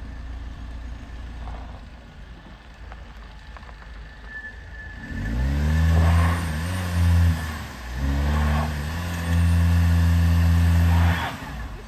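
Front-wheel-drive Audi A6's engine idling low, then revved hard in several pulls and held high for about two seconds before dropping back abruptly near the end. The car makes no headway up the steep loose-dirt slope.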